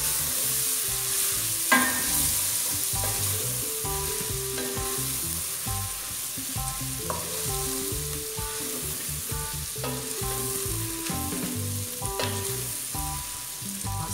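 Diced bacon, calabresa sausage, onion and garlic sizzling as they fry in a stainless steel pot and are stirred with a wooden spoon, with a few sharp knocks along the way.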